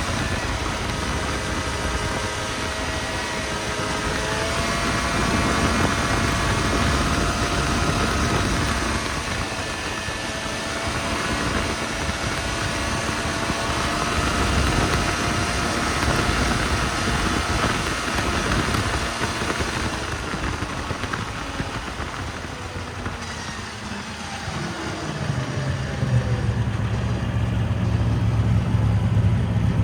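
Snowmobile engine running steadily under way, its tone holding over a dense rushing noise. Near the end it drops back to a lower, steady drone.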